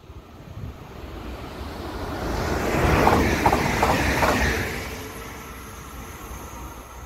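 A train passing at speed: its rumble swells to a peak about three to four seconds in, with a few short clacks as it goes by, then fades away.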